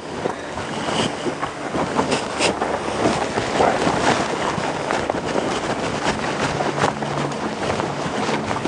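Wind noise on the microphone, steady throughout, over the irregular footfalls of two horses walking and stepping in soft dirt.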